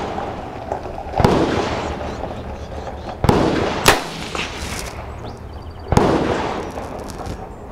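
Mossberg 640 bolt-action rimfire rifle fired three times, about two seconds apart, each a sharp crack with a short echo. A brief sharp click comes just after the second shot.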